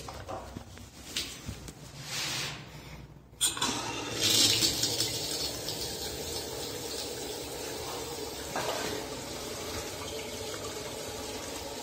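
Water running from a chrome single-lever basin mixer tap into a vessel basin, turned on suddenly about three and a half seconds in and then running steadily. A few light knocks from handling come before it.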